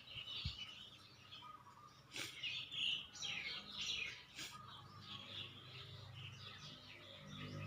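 Small birds chirping and twittering, a series of short high calls.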